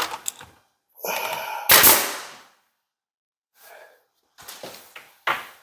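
Pneumatic 18-gauge brad nailer firing into the face frame, each shot a sharp crack with a hiss of air. The loudest shot comes about two seconds in and another near the end.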